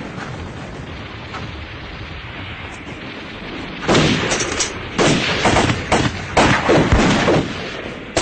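Battle gunfire from rifles. The first few seconds hold a low rumble of distant firing; then, about four seconds in, a burst of close, sharp shots begins, roughly two a second, some ringing after the report.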